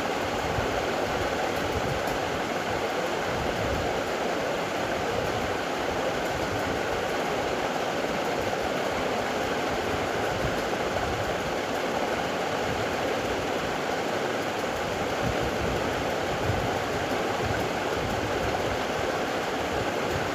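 A steady, even rushing noise with no breaks or separate sounds in it.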